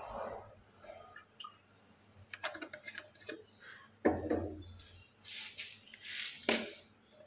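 Handling noises: a few light clicks and knocks, a heavier thud about four seconds in, then short hissing rustles near the end, as a plastic water jug and vessels are moved and set down.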